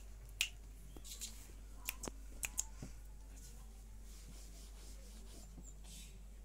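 Fingers snapping several times, sharp single clicks in the first few seconds, then faint rustling.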